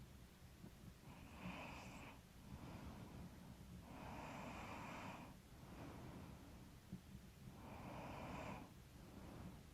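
A woman breathing slowly and heavily in her sleep: three long, noisy breaths about four seconds apart, a light snore that she puts down to being a little stuffy.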